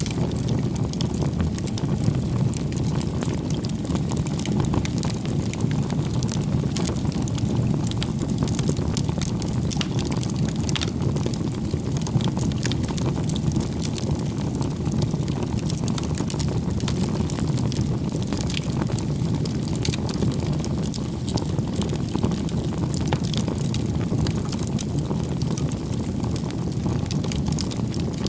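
Wood fire burning: a steady low rumble of flames with frequent sharp crackles and pops from the burning wood.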